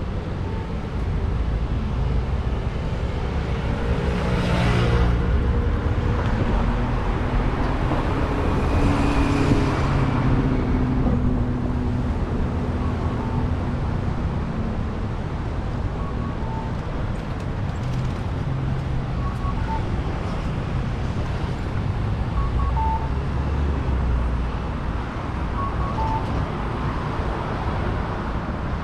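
Steady road traffic rumbling past, with two vehicles passing closer and louder about four and nine seconds in, their engine notes falling as they go by.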